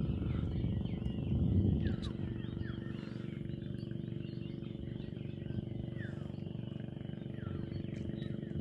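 A boat engine running with a steady low hum. Short falling chirps come and go over it.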